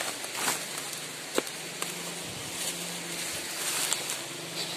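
Footsteps crunching and rustling through dry bamboo leaf litter, with a few scattered sharp snaps and ticks.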